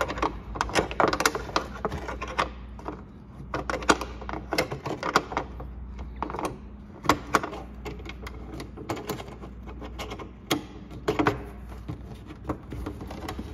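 A metal wrench clicking and clinking against a 10mm bolt as it is worked loose, with irregular sharp clicks spaced unevenly throughout.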